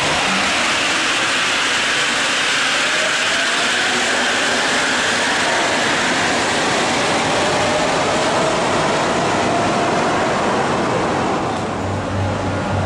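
Rubber-tyred Marseille Metro train pulling out of an underground station: steady rolling noise with a traction-motor whine that rises slowly in pitch as it picks up speed, fading near the end.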